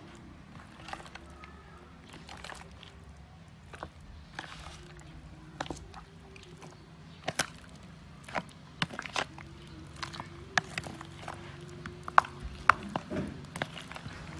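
Raw chicken feet being mixed by hand in a thick seasoned coating in a plastic bowl: irregular wet squelches and sharp clicks of the feet knocking together. The clicks get more frequent and louder in the second half.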